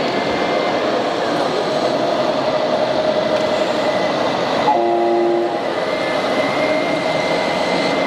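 Radio-controlled model trucks and construction machines running with a steady mechanical hum. A short horn blast sounds about five seconds in, lasting under a second.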